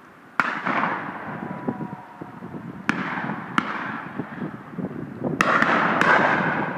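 Shotguns firing: about six shots at irregular intervals, some in quick pairs, each with a long echoing tail.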